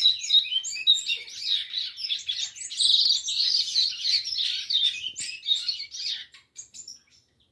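Caged seedeaters singing a fast, continuous song of rapid high chirping and warbling notes, which thins out and stops about six and a half seconds in.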